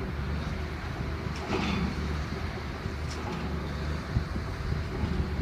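Diesel engines of a SANY GR215 motor grader and a dump truck running on a road-building site, a steady low drone, with a brief louder rush about a second and a half in.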